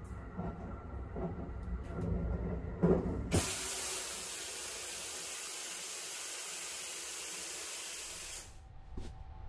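Running water, a steady hiss that starts abruptly about three seconds in and stops shortly before the end. Before it, the train's low running rumble with a soft thud about once a second.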